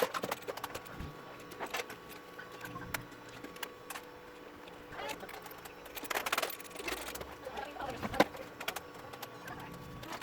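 Small tools clicking and scraping against a TV power-supply circuit board during a component repair. A scattering of light clicks, with a busier stretch of scraping about six seconds in, over a faint steady hum.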